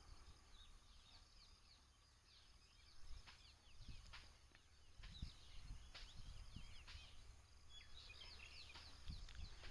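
Near silence: faint bird chirping in the background, with a few soft clicks.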